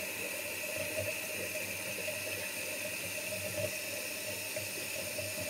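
Bathroom sink faucet left running, a steady rush of water into the basin.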